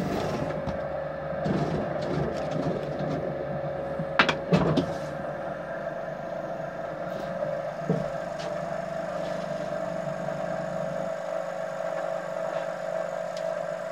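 Potter's wheel running with a steady hum while a cutting wire is drawn under a freshly thrown clay plate and the plate is lifted off the wheel head, with a few knocks and handling sounds. The deep part of the hum drops away near the end.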